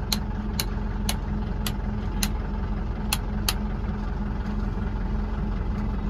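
Force Traveller van idling, heard from inside its cabin as a steady low hum, with a string of sharp clicks, about two a second, over the first three and a half seconds.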